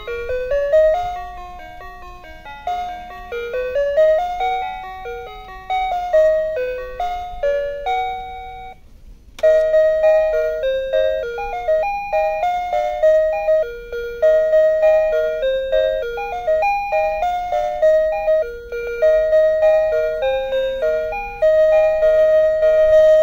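Background music: a light melody of single notes that strike and fade, stopping briefly about eight and a half seconds in, then carrying on.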